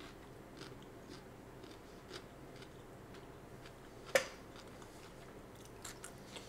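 Faint crunching of a person chewing a crisp baked jicama fry, a few soft crunches spread out, and one sharp click about four seconds in as a hand reaches the plate of fries.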